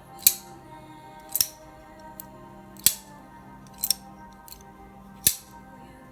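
Folding pocket knife being flicked open and snapped shut over and over: five sharp metallic clicks about a second to a second and a half apart, with fainter clicks between, over background music.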